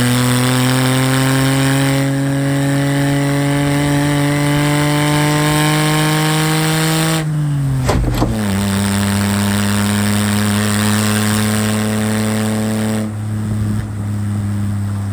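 Mitsubishi Minicab kei van engine and exhaust, fitted with a home-welded one-off muffler, pulling through the gears. The revs climb steadily for about seven seconds, fall sharply at an upshift, then climb again and fall once more near the end.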